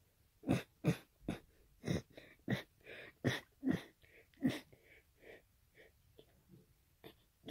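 A person sneezing and coughing in a rapid run of short bursts, about a dozen in all, starting about half a second in and growing weaker after the first four or five seconds.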